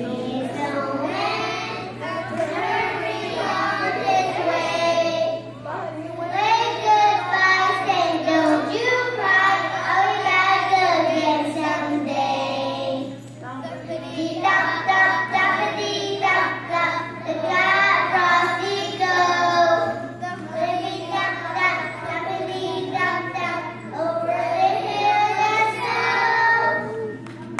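A group of kindergarten children singing a Christmas song together, in sung phrases with brief pauses between them.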